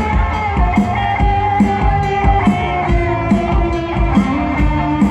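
Loud upbeat band music with guitar and a steady drum beat, played over a sound system.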